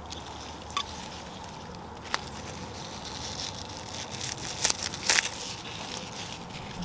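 Kitchen shears snipping through a bunch of chive stalks: a few crisp cuts, the loudest two about four and five seconds in, over a steady outdoor hiss.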